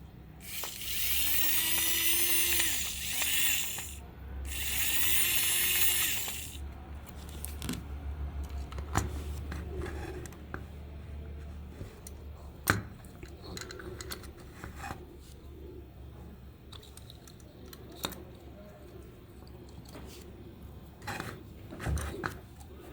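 A small electric rotary power tool spinning up and running in two bursts of a few seconds each, its whine rising and then falling each time. After that come quiet scattered clicks and knocks of handling.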